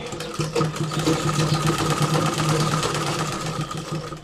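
Sewing machine stitching a zipper seam into a kameez at a steady fast speed: a steady hum with a rapid run of needle ticks, stopping near the end.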